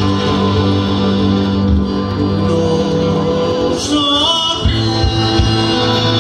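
Live folk music: a man sings a southern Italian folk song into a microphone over instrumental accompaniment, with held notes and a phrase of wavering pitch about four seconds in.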